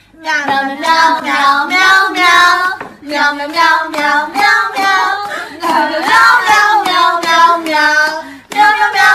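A high-pitched voice singing a melody in phrases, breaking briefly about three seconds in and again near the end.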